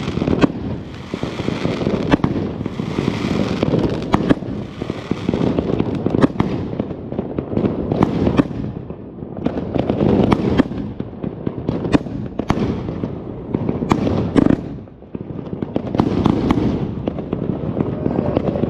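Extreme Fireworks Excalibur 99-shot fireworks cake firing: a dense, fast string of sharp bangs from shots and aerial bursts, one on top of the next.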